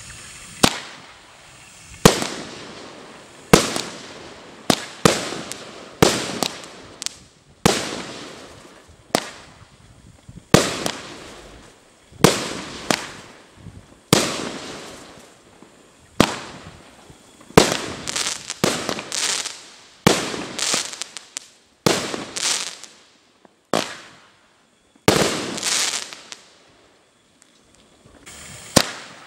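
A 1-inch, 16-shot consumer fireworks cake firing: sharp launch thumps and aerial bursts about every second or two, some followed by a spell of crackling. It goes quiet shortly before the end.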